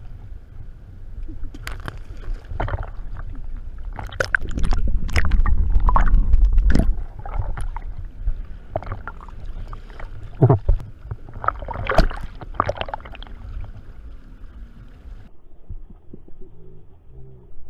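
Sea water sloshing and splashing around a camera held at the surface, with a heavy low rumble of water against the housing and many sharp splashes, loudest a few seconds in. Near the end the sound turns muffled.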